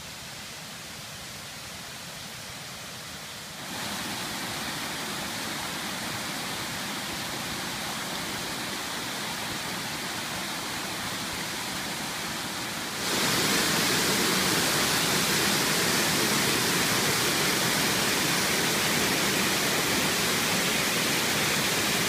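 Waterfall: white water pouring over rock ledges, a steady rushing hiss with no pitch. It jumps louder about four seconds in and again, more sharply, about thirteen seconds in, as the falls come close.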